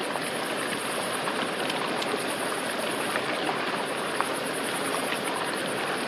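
Steady rushing background noise, like running water, with a few faint taps of a knife pommel striking wild hazelnuts on a flat stone, about two and four seconds in.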